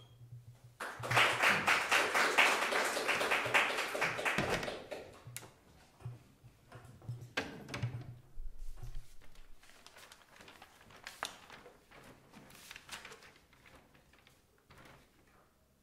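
Audience applause for about four seconds, then scattered small taps and knocks as the microphone stands and the piano seat are handled before the performance.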